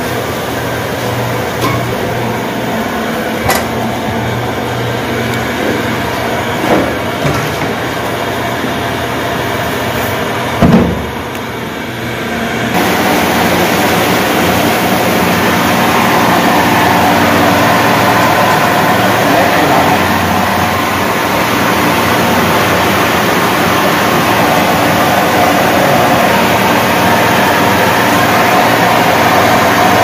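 Small electric rice-milling chakki (huller/polisher) running with a steady mechanical drone, milled rice streaming from its chute into a plastic tub. There is a brief thump about eleven seconds in, and the drone grows louder and fuller soon after.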